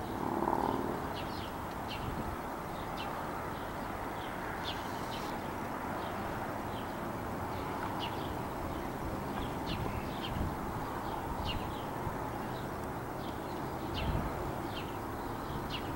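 Small bird chirping repeatedly, short high chirps about once or twice a second, over a steady rushing background noise. A brief low pitched call sounds just after the start.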